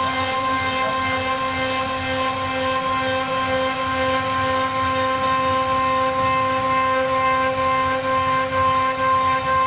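CNC router spindle running at speed while its bit cuts a groove in a wooden door panel: a steady high whine over the rough noise of the bit chewing through the wood.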